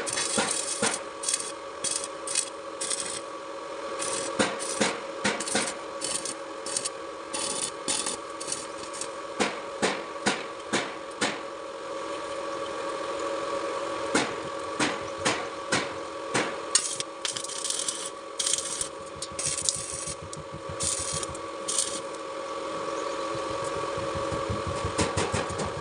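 Irregular sharp taps and scraping from hand tools working, over a steady machine hum.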